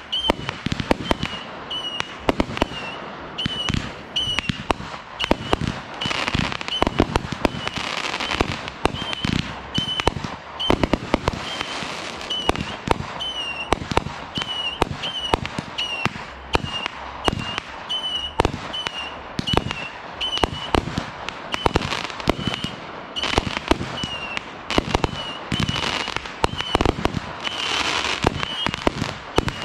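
Aerial fireworks going off in quick succession: launch thumps, bursting bangs and crackling pops, several a second throughout. Behind them a short high chirp repeats steadily, about every two-thirds of a second.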